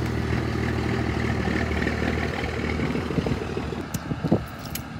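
A motor vehicle's engine idling with a steady low hum, joined by a few sharp clicks near the end.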